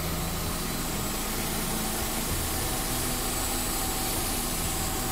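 Freshly rebuilt Toyota 3S-FE 2.0-litre four-cylinder engine idling steadily. It is on its first run-in after the rebuild, left running to loosen up.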